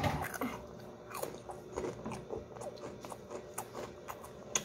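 Close-up crunching and chewing of spicy Cheetos: a string of crisp, irregular crunches, with a sharper one near the end.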